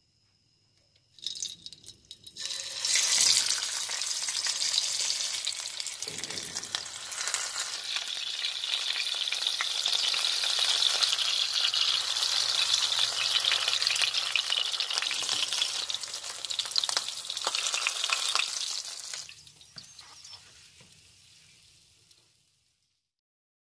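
Stuffed rolls of lamb flank sizzling as they fry in hot oil in a pan. The sizzle starts a couple of seconds in, holds steady and loud, and fades away near the end.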